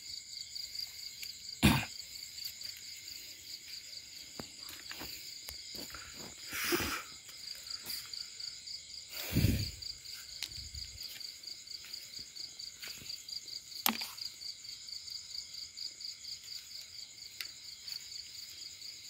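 Night insects chirping in a steady, evenly pulsing high trill. A few thumps and rustles break in, the sharpest about two seconds in and another about halfway through.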